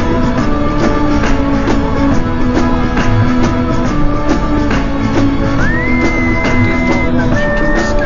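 Instrumental music with a steady beat under held tones; about two-thirds of the way through, a high tone slides up and holds.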